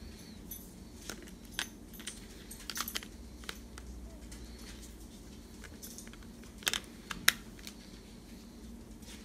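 Scattered sharp plastic clicks and snaps as a battery is fitted onto the back of a Samsung SPH-N270 phone and the handset is turned in the hands. There is a cluster of clicks in the first few seconds, and the loudest snap comes about seven seconds in.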